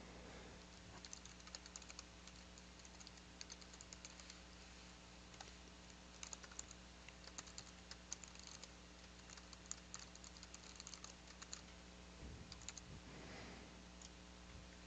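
Faint computer keyboard typing: quick runs of keystrokes with short pauses between them, as a username and password are typed in.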